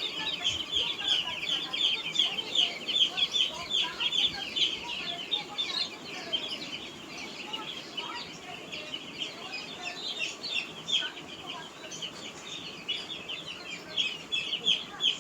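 A large flock of day-old chicks peeping continuously, a dense chorus of short, high peeps that thins a little in the middle and grows busier again near the end.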